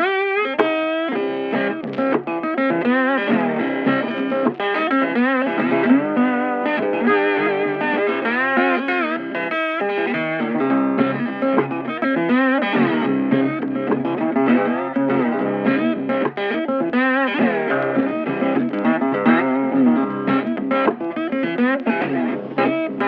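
Background music led by electric guitar, a continuous melodic instrumental track.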